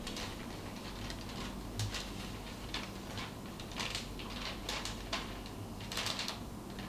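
Paper being unfolded and handled, giving irregular short crackling rustles, the densest cluster about six seconds in, over a faint low hum.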